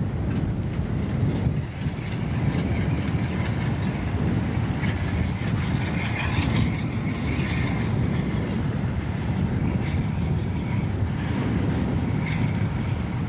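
Diesel road-switcher locomotive passing slowly with a boxcar in tow: a steady low engine rumble with the wheels rolling over the rails.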